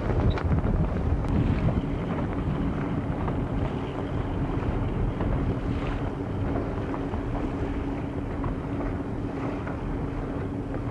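Wind buffeting the microphone on a boat out on open water, with a steady low hum running underneath from about a second and a half in.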